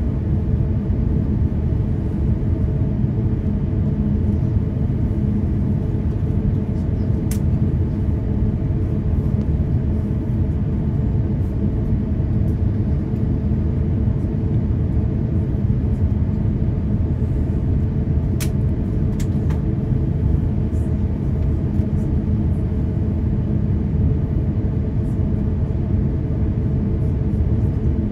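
Steady low cabin rumble of an Airbus A350-1000's Rolls-Royce Trent XWB engines idling, heard from inside the cabin, with a few faint clicks.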